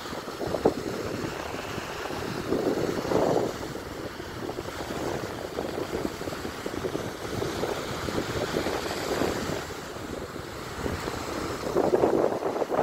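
Small Baltic Sea waves breaking and washing on a sandy beach, with wind buffeting the microphone. The sound swells louder about three seconds in and again near the end.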